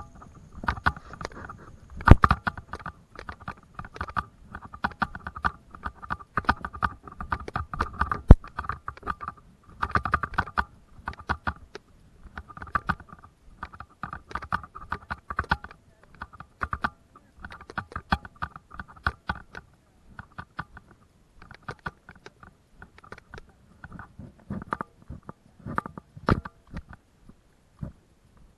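Footsteps crunching and rustling along a trail through dry cut vegetation and ferns, an irregular run of crunches and clicks with two sharper knocks, about 2 and 8 seconds in.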